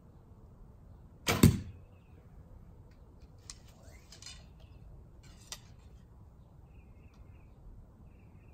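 Junxing Pharos II F261 takedown recurve bow shot with an unsilenced string: a loud, sharp release about a second and a half in, two quick strokes close together. A few light clicks follow as the next arrow is handled and nocked.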